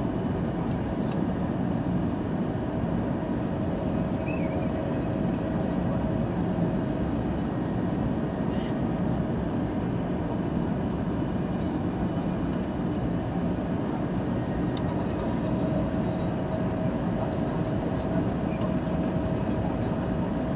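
Airliner noise during the landing: a steady, even drone of engines and rushing air, with a thin steady whine that rises slightly near the end.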